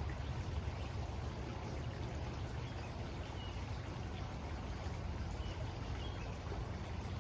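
Waterfall rushing steadily, with a few faint bird chirps over it.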